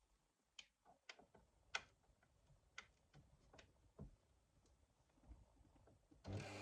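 Mostly quiet, with faint scattered clicks and taps of handling at a sewing machine. Near the end a sewing machine starts running, a steady motor hum of stitching.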